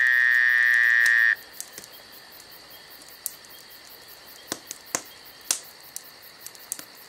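A loud, close insect buzz for just over a second that cuts off abruptly, then a steady high-pitched chorus of night insects with scattered faint clicks.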